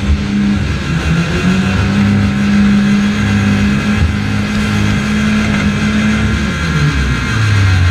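Demolition derby car engines revving hard, one held at a steady high pitch that drops away near the end.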